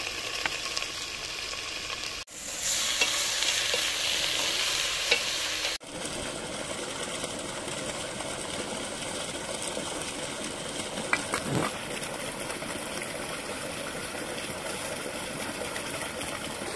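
Lamb pieces and onion sizzling in a pot over a wood fire, loudest between about two and six seconds in. The sizzle then gives way to a quieter, steady hiss.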